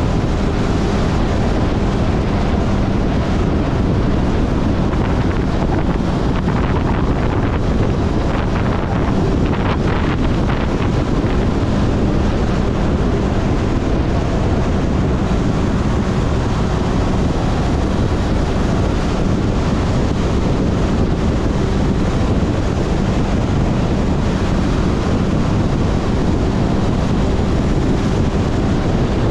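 Heavy wind noise on the microphone of a motorcycle riding at speed, over the steady running of a Honda CB400 Super Four's inline-four engine holding an even pitch.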